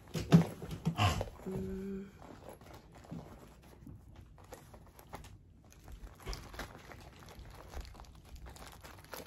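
Crinkling of a clear plastic cosmetic pouch and rustling of leather as pouches are packed into a satchel, with a few sharp knocks in the first second.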